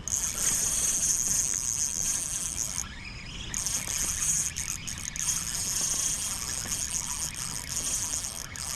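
Steady high-pitched insect buzzing that drops out for about half a second around three seconds in, then resumes, over a low rumble.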